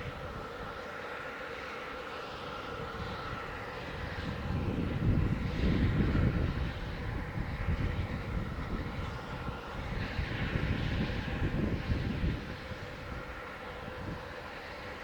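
Steam locomotive running past, a deep rumble swelling about four seconds in, loudest a second or two later, then rising and falling.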